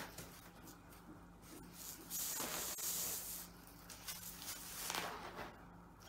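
Thin cotton printing cloth rustling and swishing as it is lifted and handled, with a long swish about two to three and a half seconds in and shorter ones near the start and about five seconds in.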